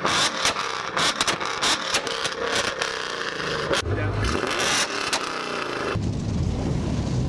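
Ford Mustang with an aftermarket exhaust being revved hard at the tailpipe, with many sharp pops and cracks. It cuts off abruptly about six seconds in.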